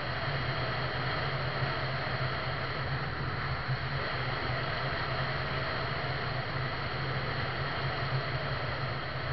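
Steady wind rush and road noise on the microphone of a camera moving along a highway, with a constant low hum underneath.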